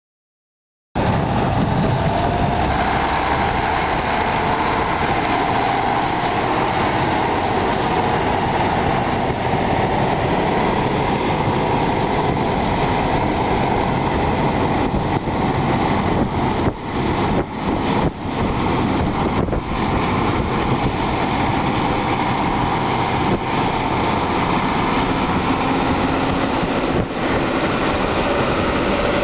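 John Deere 9630 tractor's 13.5-litre six-cylinder diesel engine running steadily, starting about a second in, with a few brief dips in level near the middle.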